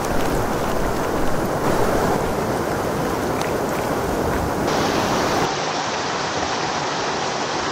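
Steady rushing noise of outdoor ambience that changes character abruptly a few times. In the last two seconds it is a small stream splashing over rocks.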